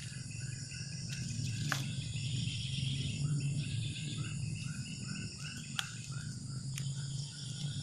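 Small creatures calling from around the pond in short chirps, about two to three a second, over a steady low hum. A few sharp clicks stand out.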